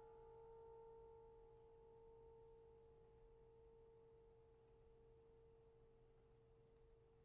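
Faint, long ring of a bowed suspended cymbal dying away: a pure steady tone with a fainter higher tone above it, both slowly fading.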